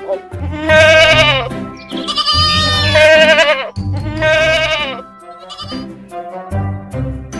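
Three long, wavering bleats in quick succession, from a goat or a sheep, over background music with a low, steady beat.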